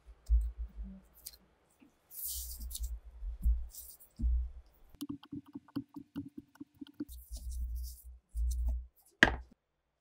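Metal clicks, knocks and dull handling bumps as the cast-iron handwheel of an antique Singer sewing machine is worked loose and pulled off its shaft. Halfway through comes a quick run of about a dozen clicks over two seconds, and near the end one sharp metallic click.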